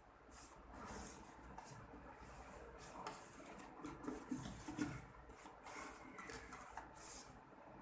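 Faint, uneven rubbing strokes with a few light knocks: a part of a front-loading washing machine being wiped clean of dust.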